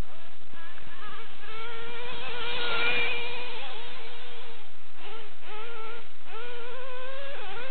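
Dynamite .28 big-block nitro engine in a Traxxas Revo RC truck revving hard at a high pitch, the note rising and falling with the throttle as the truck is driven flat out. It is loudest about three seconds in.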